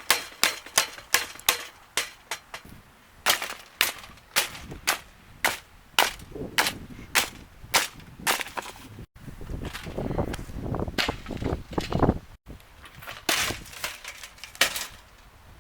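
Repeated sharp blows smashing a Lasko box fan, quick at first at about three a second, then slower and more spaced. Through the middle there is a stretch of crunching and cracking as the plastic chassis breaks and snaps in half.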